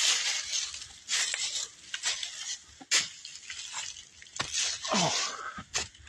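Footsteps crunching through dry fallen leaves and twigs, about one step a second, while walking up a wooded slope.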